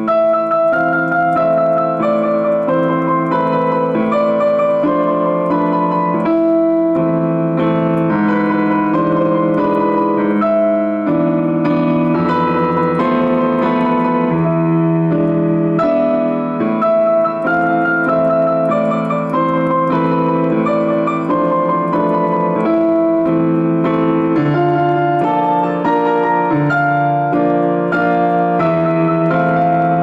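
Digital piano playing an A-minor octave study, both hands in octaves, with notes following one another in a steady, continuous rhythm.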